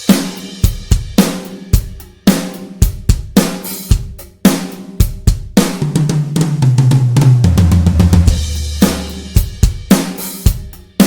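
Toontrack EZdrummer 3 sampled drum kit playing a beat with bass drum, snare, hi-hat and cymbals. About two-thirds of the way through, a fill of low drum tones steps downward in pitch before the beat comes back.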